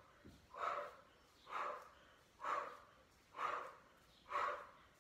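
A woman's sharp exhalations, five in a row at about one a second, breathed out in time with each leg switch of a Pilates scissor exercise.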